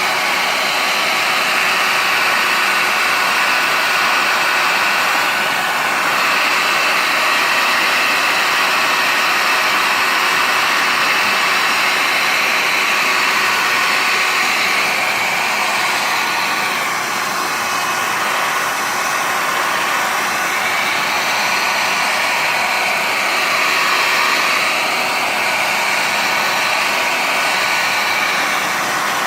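Hair dryer blowing steadily at the phone to heat it before it is pried open, with a faint whine from its motor running through the noise.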